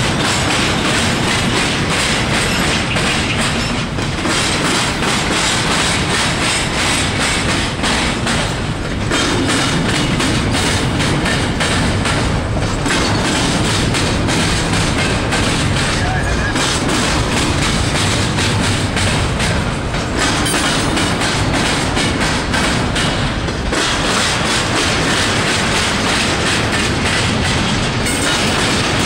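Union Pacific intermodal train rolling past: a steady, loud rumble and clatter of freight car wheels on the rails. The noise dips briefly about every four seconds.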